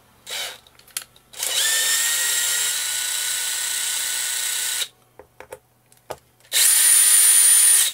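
Cordless drill-driver backing a screw out of a rubber-and-plastic fin foot pocket. It gives a short blip, then a steady run of about three seconds whose motor whine rises as it spins up. After a few small clicks comes a second, louder run of about a second near the end.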